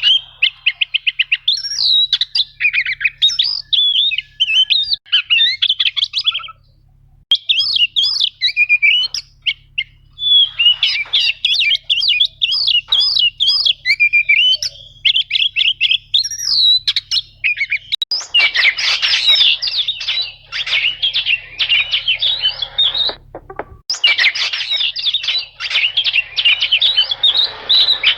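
Oriental magpie-robin singing a fast, varied song of whistled and chattering notes, with a short pause about seven seconds in. In the second half the notes turn harsher and denser, into chattering rolls.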